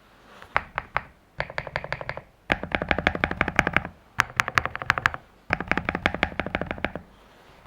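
Typing on a modded Zuoya GMK81 mechanical keyboard with hand-lubed Akko Cream Yellow V3 linear switches, stock foams and a tape mod, its PE film removed and its stock stabilizers swapped for Durock V2s. Fast runs of keystrokes come in bursts of a second or so with short pauses between, and stop about seven seconds in.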